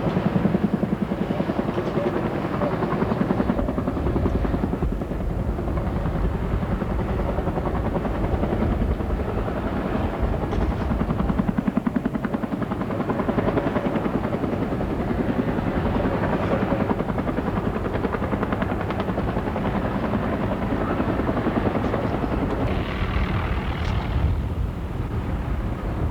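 Helicopter rotor and engine noise: a steady, rapid rotor chop with a constant rush underneath.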